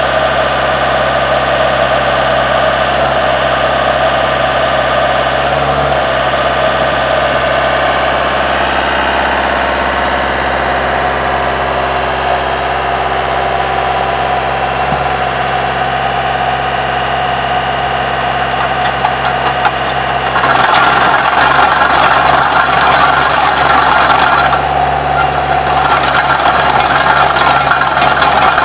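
Vermeer trencher-backhoe engine running steadily. About two-thirds of the way in, the sound gets louder and harsher, drops back briefly, then returns.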